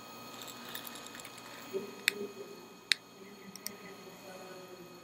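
Room tone inside a telescope dome: a steady high whine of several tones from running equipment, with scattered sharp clicks, two louder ones about two and three seconds in.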